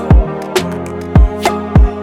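Background music: sustained chords over a drum beat, with several deep kick-drum hits and sharp snare or cymbal strikes.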